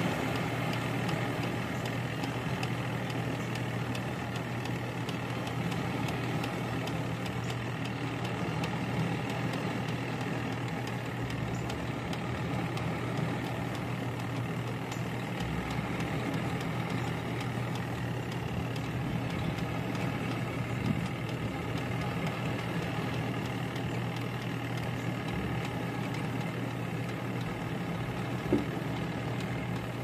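Costway EP21684 twin-tub mini washing machine on its spin cycle, the motor running with a steady hum. The spin basket is turning slower than it should, which the owner suspects is a slipping belt from the motor to the spinner.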